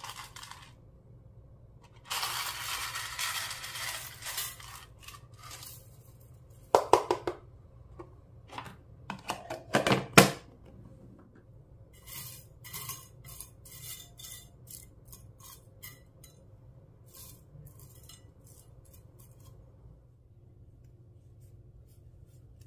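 Small hard items clinking and knocking against a mixing bowl. A stretch of rattling hiss starts about two seconds in, two sharp ringing knocks come near the middle, and scattered light clicks follow.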